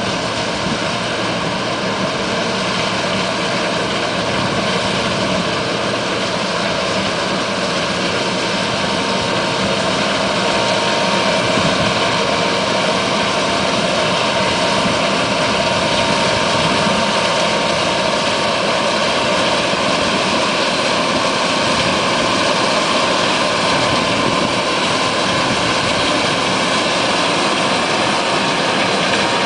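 John Deere STS combine harvester running steadily, a loud continuous mechanical drone with steady whining tones.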